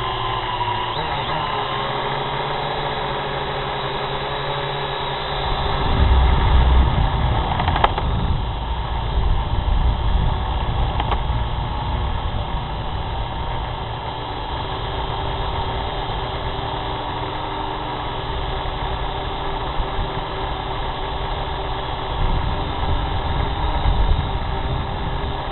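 Small camera drone's electric motors and propellers whirring steadily in flight. A deeper rumble joins about six seconds in and continues under the whir.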